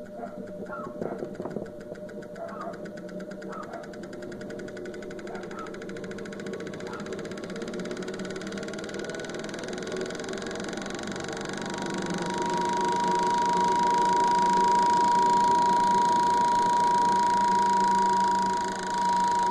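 Wanke spin dryer's motor starting and spinning the drum up, growing louder over the first dozen seconds, then running steadily with a whine from about twelve seconds in. It spins normally on a new capacitor, the old one having been burnt out.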